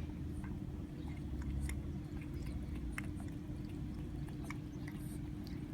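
A cat lapping water: faint, irregular small wet clicks, over a steady low hum.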